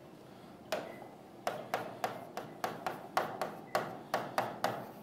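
Stylus tapping and clicking against the glass of an interactive display board while handwriting figures: a run of sharp, irregular taps, about three or four a second, starting just under a second in.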